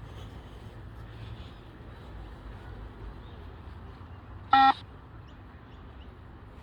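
A single short electronic beep from a beep-test recording, about four and a half seconds in, marking the end of a timed shuttle run. It sounds over a steady low rumble.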